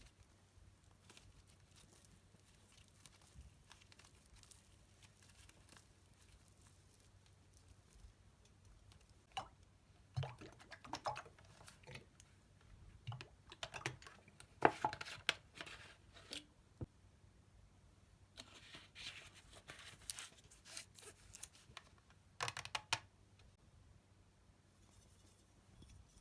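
Slime being worked by hand: a quiet stretch, then two spells of small crackles, clicks and pops, the first about a third of the way in and the second near the end.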